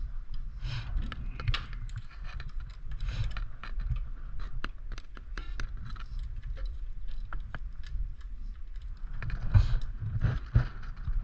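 SRAM 8-speed bicycle chain clinking and rattling as it is handled and fed onto the mountain bike's sprockets: a run of small irregular metallic clicks, with a few louder knocks near the end.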